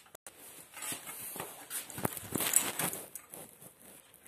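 Irregular light clicks, knocks and rustles of objects being handled, bunched together about a second to three and a half seconds in.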